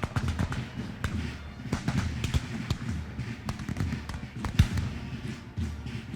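Battlefield gunfire: irregular shots cracking in quick, uneven succession over a low rumble, with the loudest, sharpest shot about four and a half seconds in.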